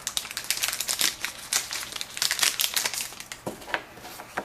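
Foil trading-card pack wrapper crinkling and crackling as it is handled and torn, a dense run of sharp crackles with a few louder ones near the end.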